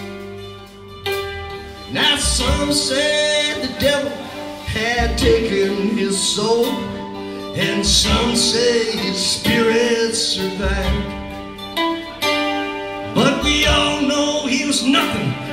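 A live three-piece band playing a country-flavoured rock song on guitar, bass guitar and drums. Strong low bass hits come round every few seconds under the guitar's sustained and bending notes.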